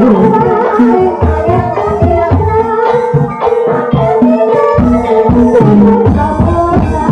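Ebeg dance music from a Javanese gamelan-style ensemble: kendang hand drums beat a busy rhythm under held melody notes.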